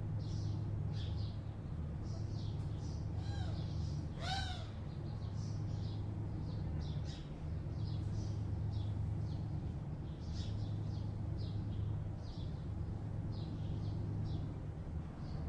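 Steady low hum of distant city traffic with small birds chirping over and over; about three and four seconds in, a larger bird gives two calls.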